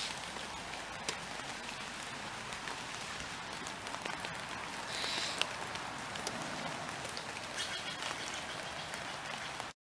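Steady heavy rain falling on leaves and ground, with many single drops ticking close by. A brief higher sound stands out about five seconds in, and the sound cuts off suddenly near the end.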